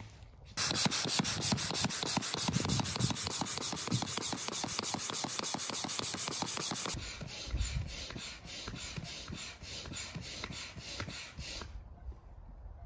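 Hand air pump inflating a chamber of an inflatable kayak: a rhythmic rasping whoosh of strokes, loud at first and quieter from about seven seconds in.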